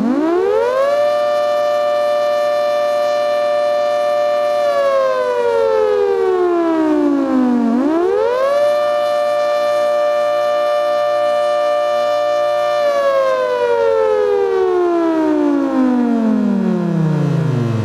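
ACA Hurricane 130 MKII electromechanical outdoor warning siren sounding a wail. It winds up quickly to a steady two-tone chord, holds it for about four seconds, then slowly winds down. It then winds up and holds again, and near the end it falls low in a long wind-down.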